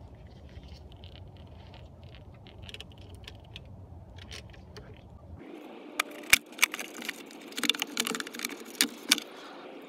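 Hand tools and metal-and-plastic parts clicking and rattling as they are handled in the engine bay of a Cummins-powered Dodge Ram, with a dozen or so sharp, irregular clicks a little past the middle. Before that there is only a low, steady background rumble.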